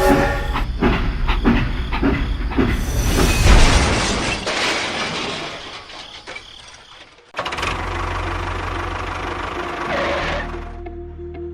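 Machine running with a run of clattering knocks, then an abrupt change about seven seconds in to a steady low rumble.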